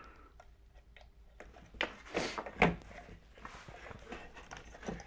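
Hand handling of tool parts during assembly of a cordless grinder: scattered clicks and knocks, a short scrape, and one sharp knock about halfway through.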